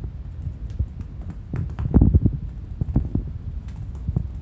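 A kitten's paws thumping and scrabbling on tatami mats as it pounces on and bats a small toy ball: irregular soft knocks and taps, with a quick cluster of them about two seconds in.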